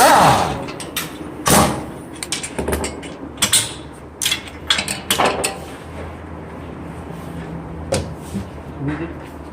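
Irregular metallic clanks, clicks and scrapes of hand tools and loose metal parts while the stock exhaust is unbolted from a Honda CD 70 motorcycle, the loudest knocks right at the start and about one and a half, three and a half and five seconds in.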